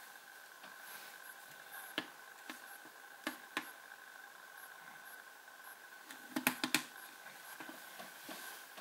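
Light clicks and taps of fingers handling and tapping a smartphone's glass screen: single clicks about two and three and a half seconds in, and a quick run of four taps a little after six seconds. Under them runs a steady faint whine.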